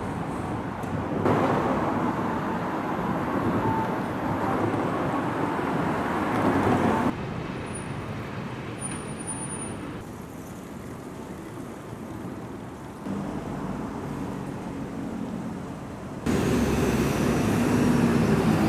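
City street traffic: a steady wash of car and bus engines and tyre noise, which steps abruptly louder and quieter several times as the recording cuts between spots along the road. It is loudest near the end, where a low engine hum comes from a city bus close by.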